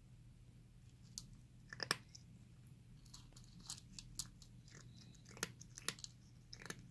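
A cat chewing crunchy food: irregular crunches and bites, the loudest a couple of seconds in.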